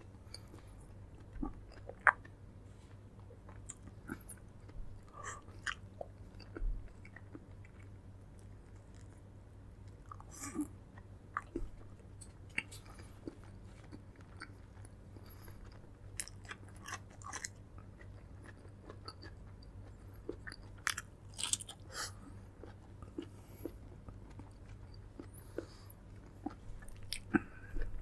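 A person chewing and biting food, with short, irregular clicks scattered throughout, over a low steady hum.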